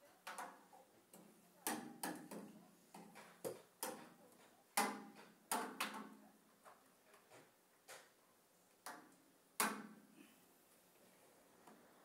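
About a dozen sharp knocks and clicks at uneven intervals, with quieter stretches between them, fewer near the end: a cloth-covered cleaning pole and hands knocking against a PVC window frame and glass during window wiping.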